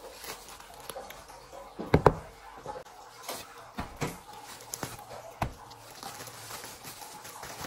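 Plastic packaging crinkling as boxed soap bars are pulled out of their clear wrapping, with a sharp knock about two seconds in and a few lighter knocks as boxes are handled and set down.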